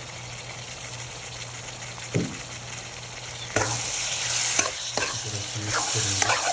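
Chopped pumpkin, onion and tomato frying in oil in a pan, sizzling, with one knock about two seconds in. From about three and a half seconds in, a metal spoon stirs and scrapes the pan in repeated strokes and the sizzle gets louder.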